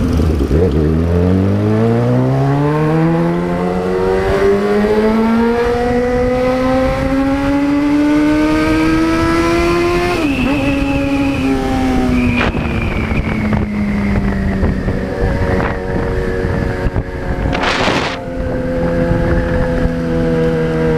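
Motorcycle engine pulling hard, its pitch climbing steadily for about ten seconds, a sudden brief dip at a gear change, then the pitch falling slowly as the throttle eases. A short rush of noise sounds near the end, over a constant rumble of wind and road.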